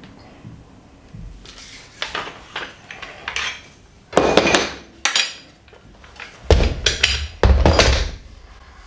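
Metal clinks and clunks of a hand-lever pipe bender's former and guide as a bent 20 mm plastic pipe is worked free and lifted out, a string of separate knocks starting about a second and a half in, with heavier thumps about four seconds in and again near the end.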